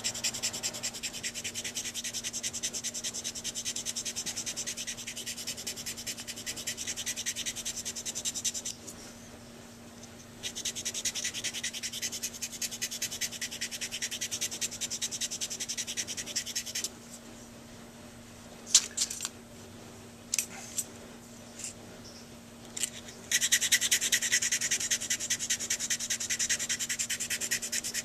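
A sanding stick is rubbed in quick back-and-forth strokes over the tip rail of a Silverite metal Dukoff saxophone mouthpiece, smoothing the rail. The scraping comes in three spells, pausing about 9 and 17 seconds in, with a few light clicks during the second pause.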